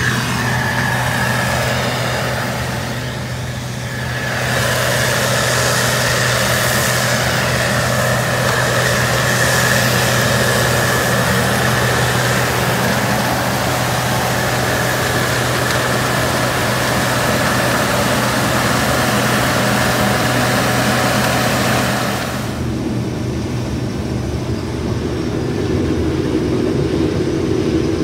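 Case IH 2366 combine running steadily, engine and machinery with a low hum and a steady high whine, dipping briefly in loudness about three seconds in. About 22 seconds in the sound changes suddenly: the hiss drops away and a lower hum comes up.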